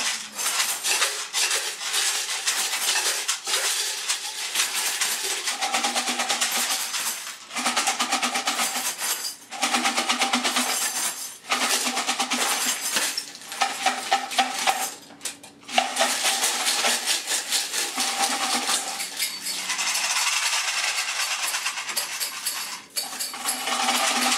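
Several homemade shakers (metal tins and plastic containers filled with small hard objects such as coins, screws and clips) rattling and jingling together in a continuous shake, with a few short breaks.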